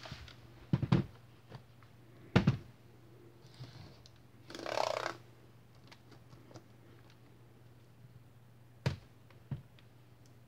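Acer TravelMate P453 laptop handled on a wooden desk: pairs of sharp knocks as it is turned over and set down, a brief rustle about halfway through, and two knocks near the end as the lid is shut.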